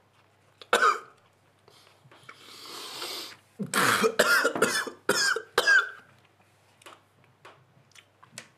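A man coughing and gagging: a long noisy breath, then from about three and a half seconds in a run of harsh coughs and strained retching sounds lasting a couple of seconds.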